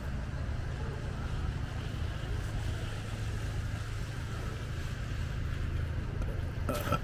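Steady low rumbling background noise, with a brief knock near the end.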